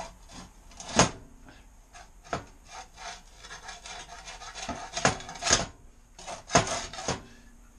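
Hard pieces being fitted into a homemade forge: scraping and rubbing with several sharp knocks, the loudest about a second in and a cluster of them a little past the middle.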